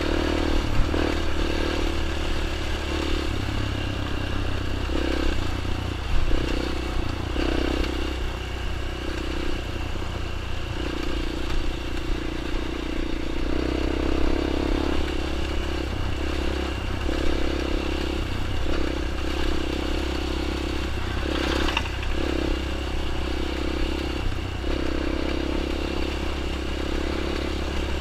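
Small dirt bike engine running, its pitch and loudness rising and falling every second or two as the throttle opens and closes, with a few knocks and clatters.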